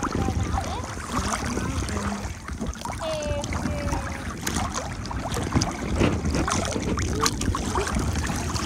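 Kayak paddles dipping and splashing in lake water, with small waves lapping around the hulls and wind buffeting the microphone in a low rumble.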